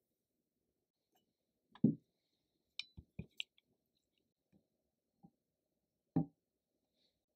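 Scattered soft knocks and clicks of a spatula against a measuring jug while custard mixture of egg yolk, milk, sugar and flour is stirred. The loudest is a low thump about two seconds in, followed by a quick run of sharper clicks and another thump near the end.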